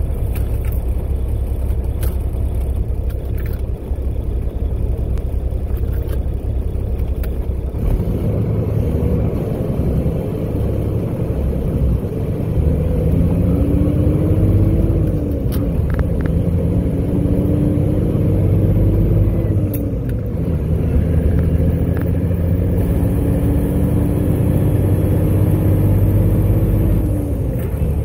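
Dump truck's diesel engine heard from inside the cab, pulling through the gears of a manual transmission. In the second half the engine note climbs slowly, then drops sharply at each upshift, three times.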